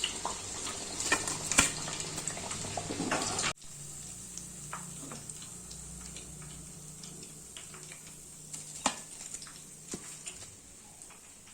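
Hot oil sizzling and crackling as cornflake-coated chicken pieces deep-fry, with many sharp pops. About three and a half seconds in it drops suddenly to a quieter, sparser crackle with an occasional pop.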